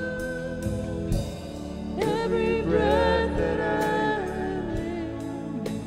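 A woman singing a slow worship ballad with a live band. She holds a long note, then starts a new phrase about two seconds in, over light cymbal ticks keeping time.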